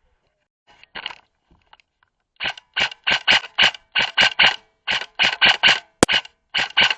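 Airsoft rifle firing a rapid string of shots, about four or five a second, each a short mechanical snap. A couple of sharper, cracking reports stand out near the end.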